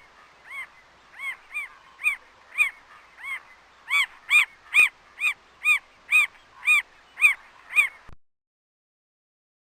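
A bird calling over and over, short arched notes at about two a second, louder from about four seconds in, then cutting off suddenly after about eight seconds.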